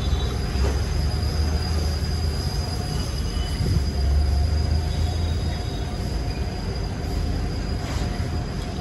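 Diesel engine running steadily: a continuous low rumble that swells a little now and then, with a faint high whine above it.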